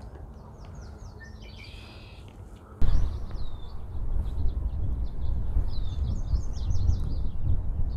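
Small songbirds chirping and trilling in quick repeated phrases. About three seconds in, a loud low rumble sets in suddenly and continues under the birdsong.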